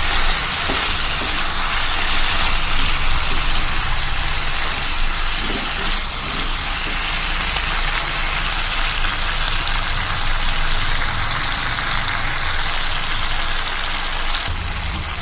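Chicken and potato curry sizzling steadily as it fries in a metal kadai while it is stirred, over a steady low hum.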